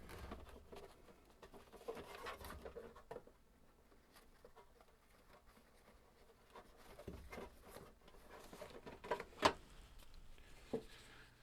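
Light handling noises: scattered soft taps and rustling, with a few sharp clicks about nine to eleven seconds in, the loudest near nine and a half seconds.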